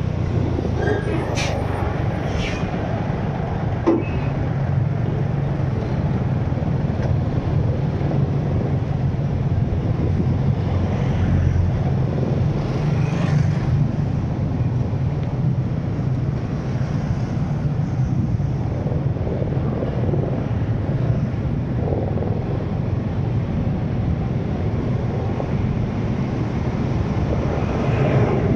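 Steady road noise from a vehicle being driven in traffic: a low engine and tyre rumble, with a few brief higher-pitched sounds in the first few seconds.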